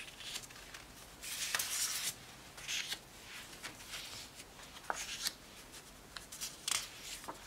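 Sheets of 6x6 patterned designer paper being picked up, turned over and laid down on a stack: several short papery rustles and slides, with a few light taps as sheets settle.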